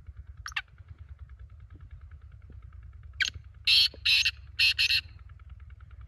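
Partridge calls: a single call, then four loud harsh calls in quick succession in two pairs, over a fast steady ticking in the background. A short falling whistle comes near the start.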